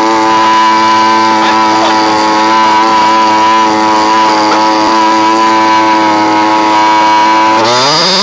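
HPI Baja 5B SS 1/5-scale RC buggy's two-stroke petrol engine running loud at a steady pitch while the car is held in place for a burnout, then revving up sharply near the end.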